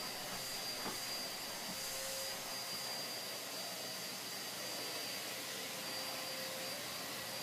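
Vacuum cleaner running steadily: an even rushing noise with a faint high whine.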